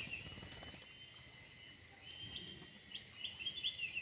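Small bird singing: a short, high chirping phrase repeated about every two and a half seconds, over a faint steady high tone.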